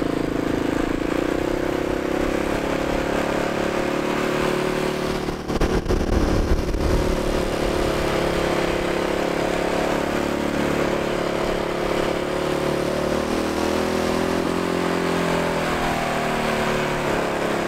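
Yamaha Raptor 660R ATV's single-cylinder four-stroke engine running under way across snow, its pitch shifting with the throttle. A short rough burst of noise comes about five and a half seconds in.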